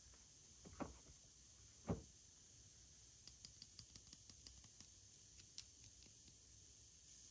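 Faint handling sounds: two soft knocks about a second apart, then a run of small, light clicks and crinkles for a few seconds, over a low hiss.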